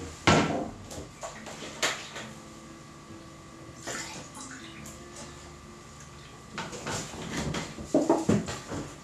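Kitchen handling clatter: a sharp knock just after the start, single knocks and clinks a couple of seconds apart, then a busier run of knocks and clinks near the end as containers and utensils are picked up and set down on the counter.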